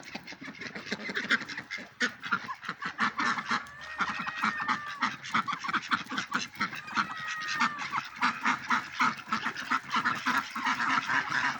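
A flock of domestic waterfowl calling in a fast, continuous chatter of short honks and quacks, with a couple of longer, higher calls about four and seven seconds in.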